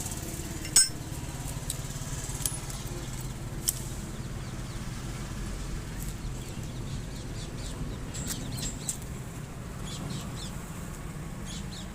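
Honda Unicorn BS6 motorcycle's single-cylinder engine idling steadily, with one sharp click about a second in and a few faint light ticks over the hum.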